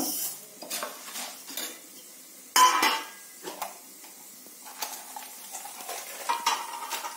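A steel spoon stirring and scraping dal frying in oil in an aluminium pressure cooker, with a faint sizzle and scattered small clicks. There is one loud metallic clank about two and a half seconds in, and another ringing knock near the end.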